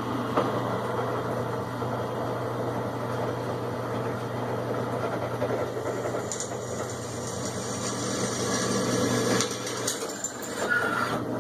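Electric drill boring a pritchel hole through 16-gauge sheet steel, its motor running steadily under load before stopping near the end.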